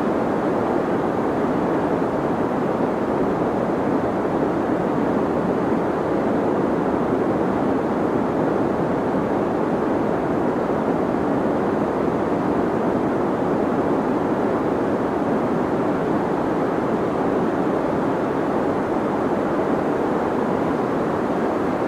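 Deep white noise for sleep: a steady, unchanging rushing with most of its weight in the low and middle range and little hiss at the top.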